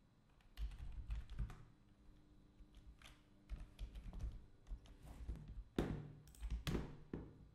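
Typing on a computer keyboard: scattered keystrokes and clicks, the loudest two a little before the end.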